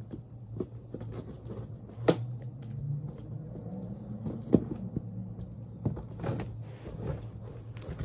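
Cardboard shipping box being handled and opened by hand: scattered knocks, taps and scraping, with two sharper knocks about two and four and a half seconds in, over a steady low hum.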